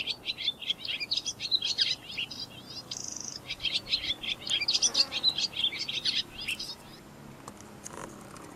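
A songbird singing a fast, varied song of chirps, trills and buzzy notes, which stops about seven seconds in.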